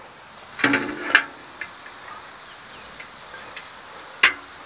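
Light clicks and knocks of a screw and cordless drill being handled against the smoker's sheet-metal control panel as the screw is set. There is one sharp metallic click shortly before the end.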